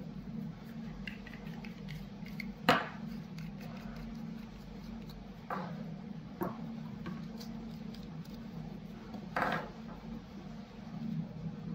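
Small plastic cable-connector parts and tools being picked up and set down on a wooden table: light clicks, a sharp knock about three seconds in, and a brief clatter near the end. A steady low hum runs underneath.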